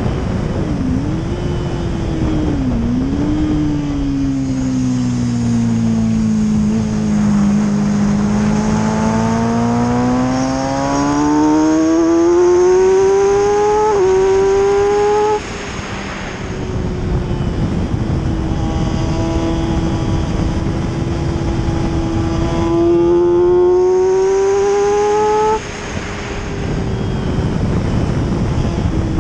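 Motorcycle engine running hard on a race track, its pitch rising and falling through the gears, with heavy wind rush over the camera. The throttle shuts off sharply twice, about halfway through and again near the end.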